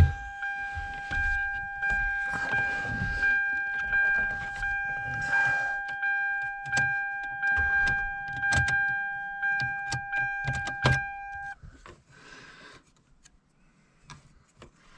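2007 Hyundai Sonata's warning buzzer sounding as one steady tone, mixed with clicks, knocks and rattles of the key and ignition switch being worked at the steering column. The tone cuts off suddenly about eleven and a half seconds in.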